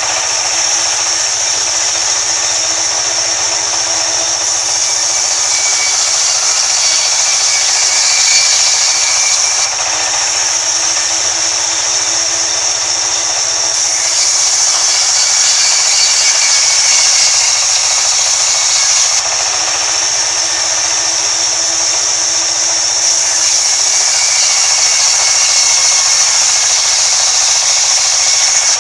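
A sawmill's vertical band saw running steadily while timber is fed through its blade and ripped into planks. The sound is loud and even throughout.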